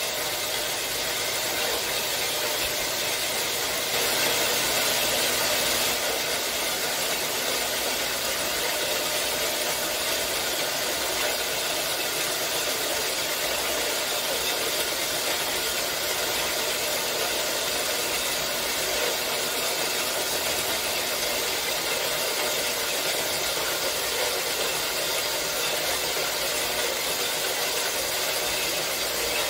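4x6 horizontal metal-cutting bandsaw running steadily, its blade sawing through a bundle of 11 gauge square steel tubing. It gets a little louder for a couple of seconds about four seconds in.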